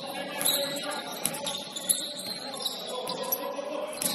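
Basketball shoes squeaking on a gym court, a series of short high-pitched squeals, with a few sharp knocks.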